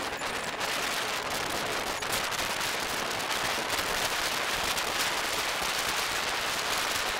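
Wind buffeting the microphone on the open deck of a moving ferry: a steady rough rush of noise with dense crackling.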